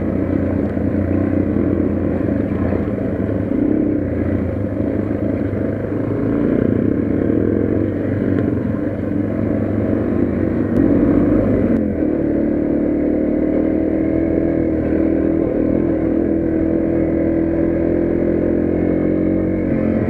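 Yamaha TW200's single-cylinder four-stroke engine running under way on a dirt trail, recorded from the motorcycle itself. The engine note wavers with the throttle in the first half, then holds a steadier pitch from about twelve seconds in.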